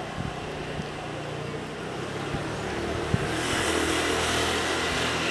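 A steady low motor-like hum with one sharp smack about three seconds in, the hand striking the ball in a raspall rally. From about three and a half seconds a broad hiss rises over it.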